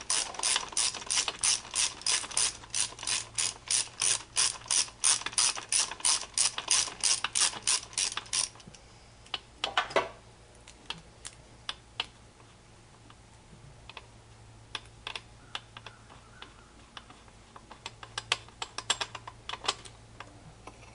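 Hand socket ratchet clicking quickly and evenly, about four clicks a second, as bolts are backed out of the supercharger assembly; the clicking stops about eight seconds in. A single louder clank follows, then scattered light taps and a few short spells of ratcheting near the end.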